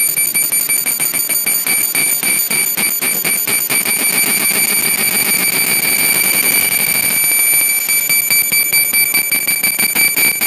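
Fiber laser marking machine etching text into a black metal nameplate: a loud, steady high-pitched whine with rapid, uneven pulsing as the beam traces each stroke.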